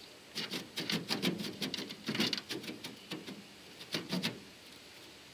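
Irregular light clicks and taps of an aluminum tube brace being handled and set against the transom inside an aluminum jon boat, with a second short cluster of knocks about four seconds in.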